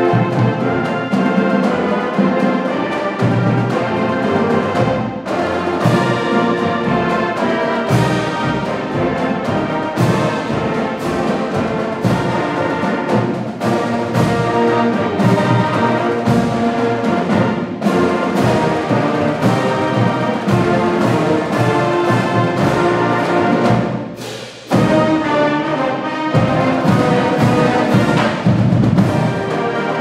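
Brass-led orchestral music with timpani under the end credits; it dips briefly about three-quarters of the way through, then returns at full strength.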